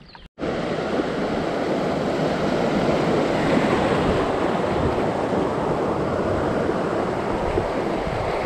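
Steady rushing of river rapids around a canoe running a swift, starting abruptly after a brief silence near the start.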